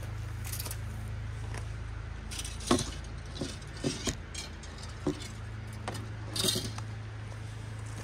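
A string of sharp metallic clinks and scrapes starting about a third of the way in, the loudest two near its start and past the three-quarter mark, over a steady low hum.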